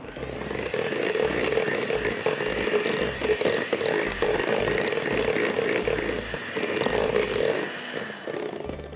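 Anex electric hand mixer running steadily, its beaters whisking cake batter of butter, sugar and eggs in a glass bowl with small knocks and scrapes against the glass. It winds down and stops near the end.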